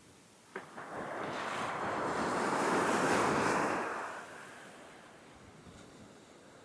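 A wave breaking on the beach with a sharp slap about half a second in, then the surf rushing up the sand, swelling for a few seconds and fading back to a low wash.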